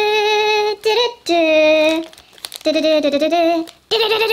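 A high voice singing a wordless tune in a few long drawn-out notes with short breaks between them.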